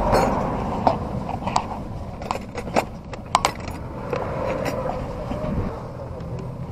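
Metal spanners and hand tools clinking in a toolbox as one is picked out, a series of short sharp clicks, over a steady vehicle hum.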